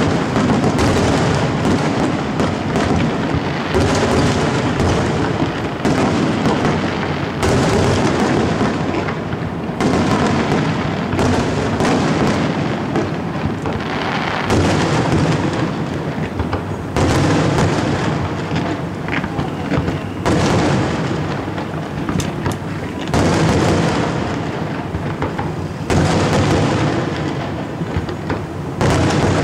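Aerial fireworks shells bursting one after another, a new loud burst every two to three seconds, each fading before the next.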